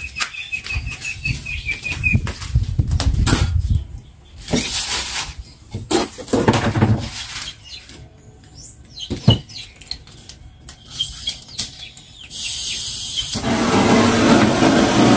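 Handheld butane torch lit about twelve seconds in, its flame then hissing steadily. Before that, scattered clicks and knocks of tools being handled on a wooden workbench, with a bird chirping repeatedly at the start.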